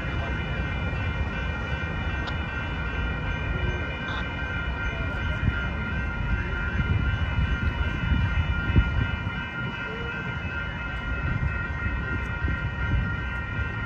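Railroad crossing warning bells ringing without a break, heard as a cluster of high steady tones, over a low, uneven rumble.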